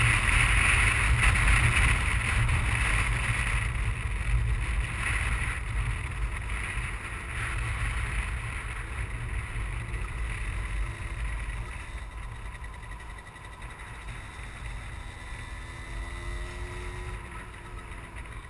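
Wind buffeting the camera microphone on a 50cc two-stroke Derbi X-treme motorcycle, over the small engine's note. The rush fades steadily as the bike slows, and the engine's wavering note comes through faintly in the second half.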